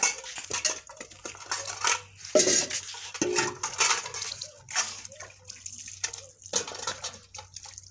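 Metal cooking pots clinking and clanking as they are handled and carried, with water splashing and dripping.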